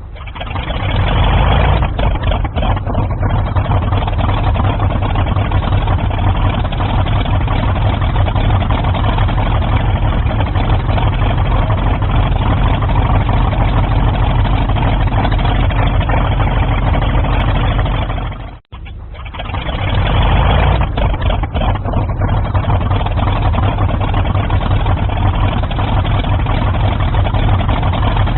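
Vought F4U Corsair's radial piston engine starting and running steadily with a deep, heavy low end. About two-thirds through the sound cuts out abruptly for a moment, then builds back up and runs on steadily.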